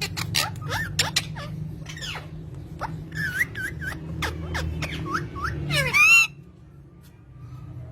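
Pet parrots calling in quick sharp chirps and short whistles, with one loud harsh squawk about six seconds in, then quieter. A low steady hum runs underneath.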